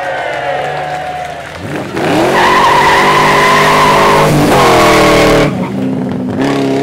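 Supercar engine on a demo run: the note falls away at first, then rises as a car accelerates hard about two seconds in, holds high revs for about three seconds with a brief dip, and drops back to a lower note about five and a half seconds in.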